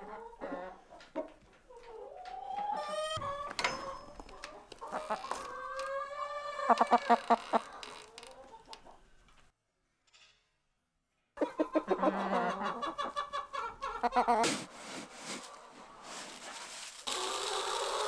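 Chickens in a coop clucking and calling, with drawn-out calls that bend in pitch. The calls break off for a moment halfway, then start again. Near the end comes a rushing hiss of feed pellets being poured into a feeder.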